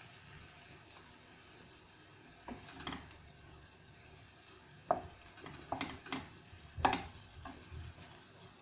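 Wooden spoon stirring and scraping diced vegetables and tomato paste around a stainless steel pan over a low sizzle of frying, the paste being fried with the vegetables. Several short scrapes come from about two and a half seconds in, the sharpest around five and seven seconds.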